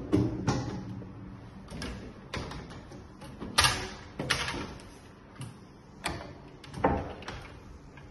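Kitchen cupboard and fridge doors being opened and shut by hand: a series of irregular knocks, clicks and thuds, the loudest at the start and about three and a half and seven seconds in.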